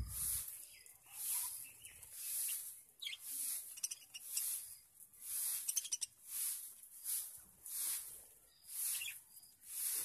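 Budgerigars chirping and chattering in short bursts, over a high hiss that swells and fades about once a second.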